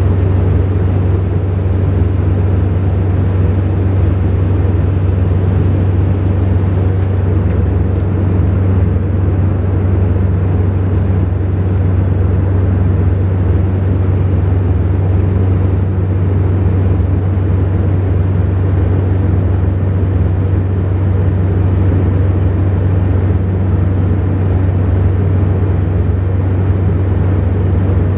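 Cabin noise of a Saab 2000 turboprop airliner in flight: its two Rolls-Royce AE 2100 turboprops and six-bladed propellers drone as a steady low hum over the rush of airflow, unchanging throughout.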